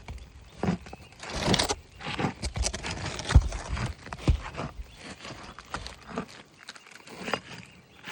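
Roof snake (shingle-removal pry tool) worked under an asphalt shingle: irregular scraping and sharp knocks as the shingle's sealant bond is broken loose, the loudest knocks near the middle.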